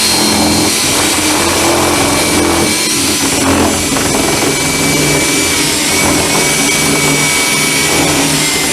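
Electric drill running steadily at speed, the side of its bit whittling wood out of a door's knob bore hole to widen it; the motor's pitch sags slightly a few times under load.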